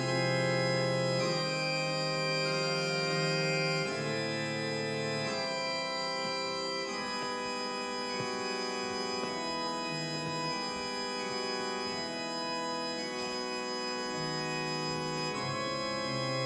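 Organ playing loud sustained chords that change every few seconds over a moving bass line; it starts abruptly.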